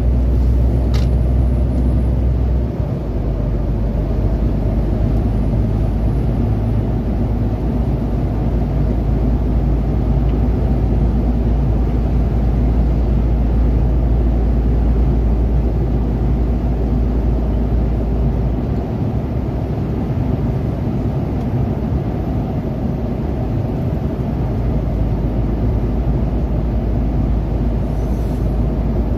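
Steady low rumble of a lorry's engine and tyre noise at motorway speed, heard from inside the cab, with a brief dip about three seconds in.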